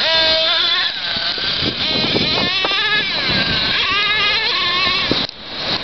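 Small nitro engine of a Thunder Tiger MTA4 radio-controlled monster truck revving, its high whine rising and falling in pitch as the truck is driven away across the sand. The sound dips briefly near the end.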